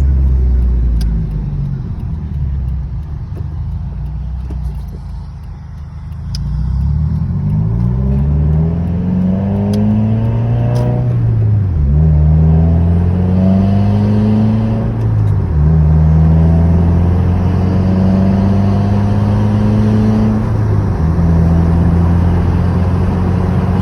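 2016 Subaru WRX's turbocharged flat-four engine easing off at first, then accelerating up through the gears. The revs climb, drop back with each upshift and climb again, three or four times.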